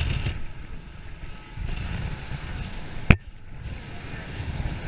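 Wind buffeting a head-mounted camera's microphone, a gusty low rumble. A single sharp click about three seconds in.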